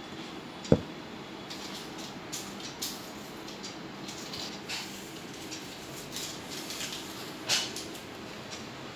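Cats playing on a tiled floor: scattered light scratches, scuffs and clicks of paws and claws and of a small object being batted about, with one sharp thump about a second in and a louder scuffle near the end.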